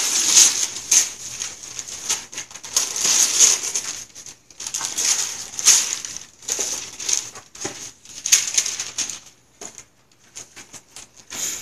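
Gift wrapping paper being torn and crumpled off a present in a series of ripping bursts, every second or two. Near the end the ripping gives way to a few faint rustles and clicks.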